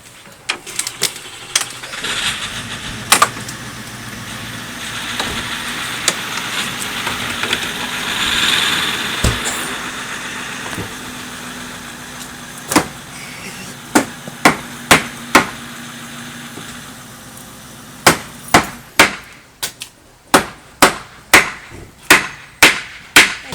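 Big hammer striking the tree: a few blows, then a steady run of blows roughly every half second near the end. In between, a steady rushing noise swells and fades.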